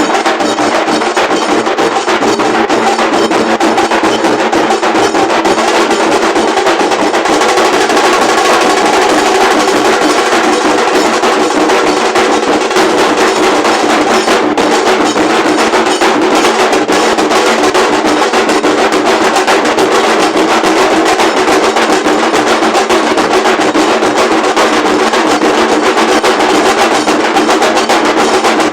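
A group of large dhol drums played together in a loud, fast, unbroken beat of dense rapid strokes.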